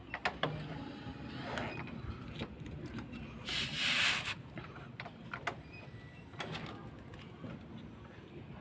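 Metal motorcycle engine parts being handled by hand during a piston and cylinder rebuild: scattered clicks and taps, with a short scraping rub about three and a half seconds in.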